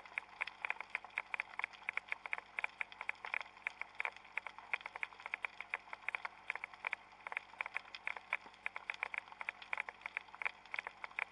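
Underwater crackling: dense, irregular sharp clicks, many each second.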